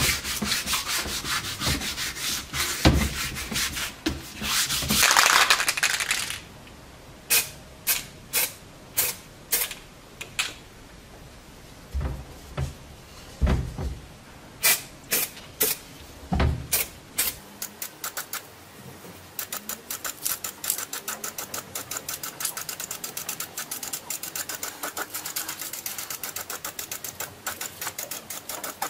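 Sandpaper rubbing on a steel helmet shell for about the first six seconds. Then comes a series of sharp clacks about twice a second, the mixing ball of an aerosol spray-paint can being shaken, with a few knocks. In the last third there is a fast, even rattle of clicks.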